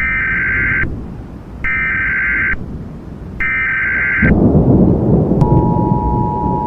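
Emergency Alert System tones: three short warbling SAME digital data bursts about a second apart, announcing a new alert. A low thunder-and-rain rumble then comes in, and about a second later the steady two-tone EAS attention signal starts.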